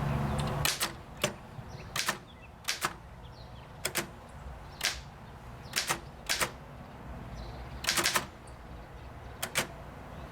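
1923 Underwood Portable three-bank typewriter being typed on slowly: sharp single keystrokes at uneven spacing, some in quick pairs, as the typebars strike.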